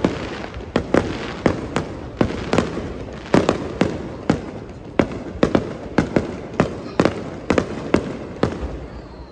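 Aerial fireworks bursting in rapid succession: a string of sharp bangs, about two or three a second, each followed by a short rumbling tail. The bangs thin out near the end.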